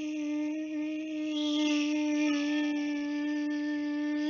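A woman's voice imitating a blowfly's buzz: one long, steady buzzing hum on a single pitch, cutting off suddenly at the end.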